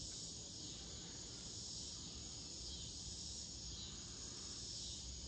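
Faint, steady, high-pitched chorus of insects, over a low rumble.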